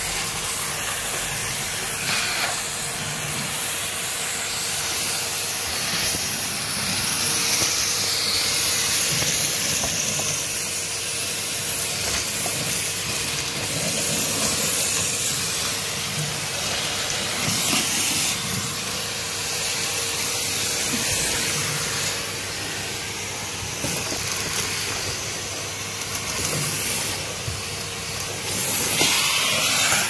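Cylinder vacuum cleaner running, its floor head sucking along bare wooden floorboards: a steady rushing hiss over a constant motor whine, rising and falling a little as the nozzle moves.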